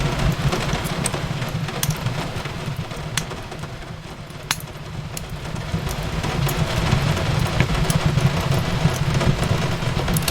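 Fireplace crackling over steady rain: a constant low rumble and hiss with scattered sharp pops from the burning wood, the loudest about four and a half seconds in.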